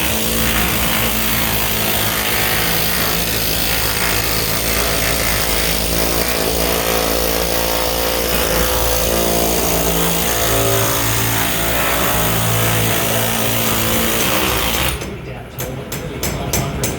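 Pneumatic air hammer running continuously against sheet-metal ductwork, a loud steady rattle that stops about 15 seconds in.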